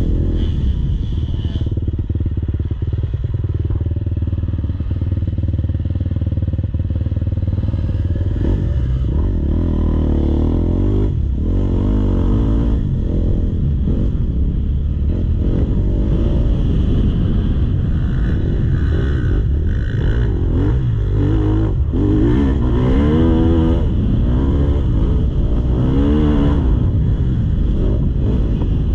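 Motocross bike engine being ridden hard, its pitch repeatedly rising and falling as the throttle opens and closes, over a heavy low rumble.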